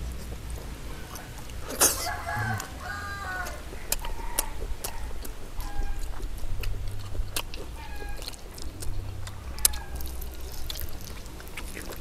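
Chickens clucking, with a rooster crowing about two seconds in. Sharp clicks and taps come throughout, the loudest just before the crow.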